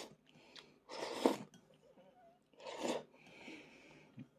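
Mouth sounds of a man eating with chopsticks: two short, noisy bursts as he takes in food, with quieter chewing between them.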